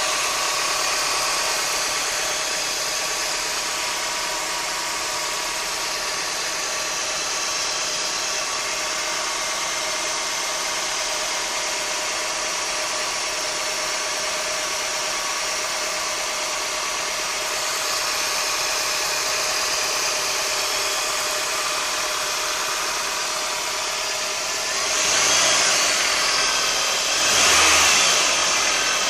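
Toyota Corona Exiv engine running steadily with an engine knock, which the owner reports. It gets louder twice near the end.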